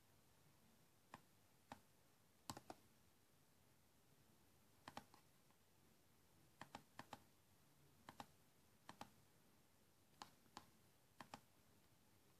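Faint, scattered clicks from a laptop's keys and touchpad being pressed by hand, often in quick pairs, at irregular intervals with pauses of a second or two between.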